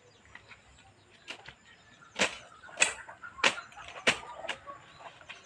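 A run of about five short, sharp swishes about half a second apart, starting about two seconds in: leafy plants and grass being brushed and rustled as a man moves into them and reaches down among them.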